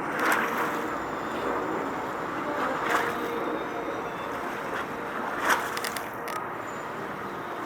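Steady outdoor noise of traffic and wind, with three brief louder swells spread through it.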